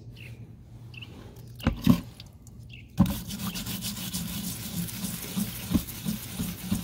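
Bristle scrub brush scrubbing a rusty steel chainsaw bar in a tub of white vinegar, a wet, rhythmic rasping that starts about three seconds in, as rust loosened by an overnight soak is scrubbed off. Just before, two loud knocks.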